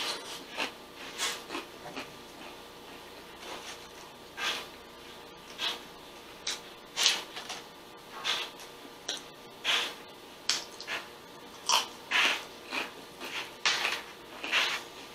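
Close-miked chewing and crunching of a taco, in short irregular crackly mouthfuls spaced about a second apart.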